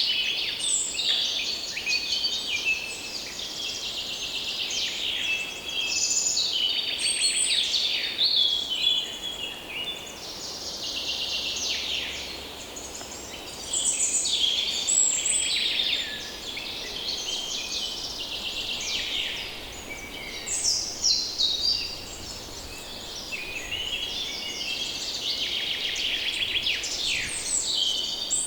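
A dense chorus of many songbirds singing and calling at once, overlapping high chirps, trills and rapid twitters, over a faint low background hum.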